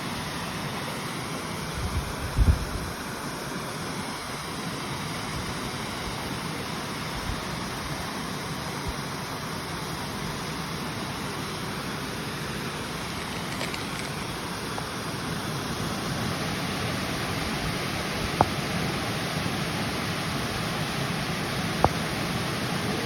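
Flowing river water, a steady rushing splash, with a brief low thump about two seconds in and two sharp clicks near the end.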